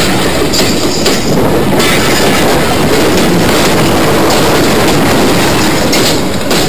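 Train running slowly along the track: a steady, loud noise of wheels on rail, with a few sharp clicks as the wheels cross rail joints.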